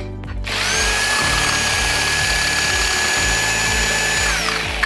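Corded power drill with a 5/8-inch masonry bit boring an anchor hole in concrete. It starts about half a second in, runs at full speed with a steady high whine, and winds down near the end.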